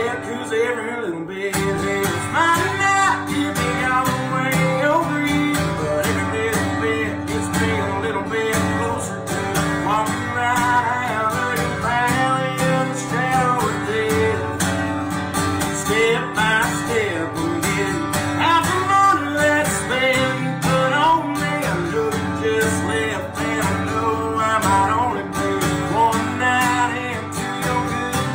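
Country band playing an instrumental break, with guitar strumming and a lead melody line of bending notes over bass and drums.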